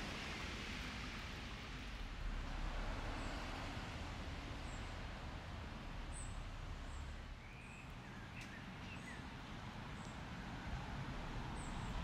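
Quiet outdoor ambience: a steady hiss and low rumble of wind with small birds chirping, short high chirps every second or so and a few lower chirps about eight seconds in.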